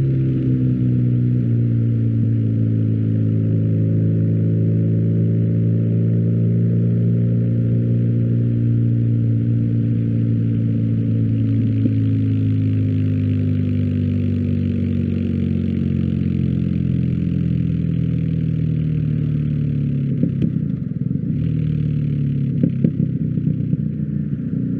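BMW R1250GS boxer twin running through an Akrapovič exhaust at a steady engine speed, its pitch easing down slowly and lifting a little near the end. A few short knocks come near the end.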